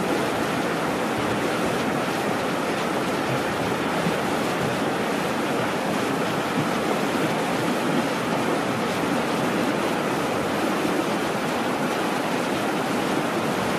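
Steady rushing of a fast-flowing river over rapids.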